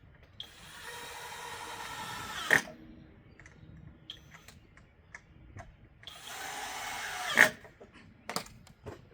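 Power drill driving two screws into pocket holes in wood, in two runs of about two seconds and one and a half seconds. Each run ends in a brief loud spike as the screw seats.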